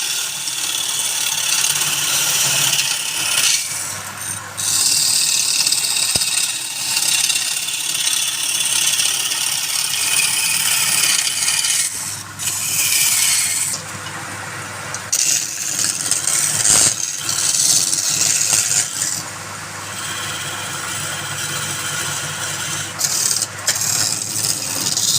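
Wood lathe with a tool working the spinning wood: a rough scraping hiss in long passes that breaks off briefly several times, over the steady low hum of the lathe's motor.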